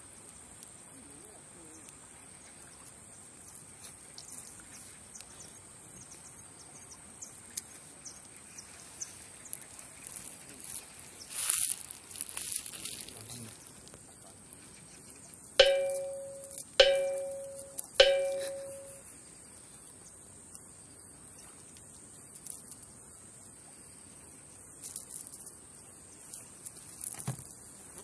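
Steady high-pitched insect chirring with fast rhythmic chirps. Past the middle come three sharp, ringing bell-like strikes about a second apart, each dying away over about a second.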